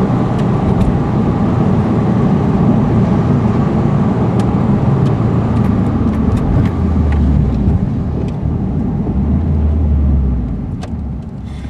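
Subaru Impreza's flat-four engine and road noise heard from inside the cabin while driving, a steady low rumble that drops away near the end.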